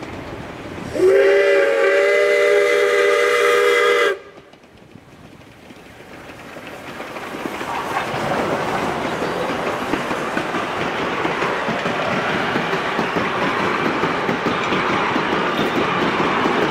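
Steam locomotive whistle sounding one long chord blast of several tones about a second in, cutting off sharply after about three seconds. Then the train rolling past, growing louder, with the carriage wheels clicking over the rail joints.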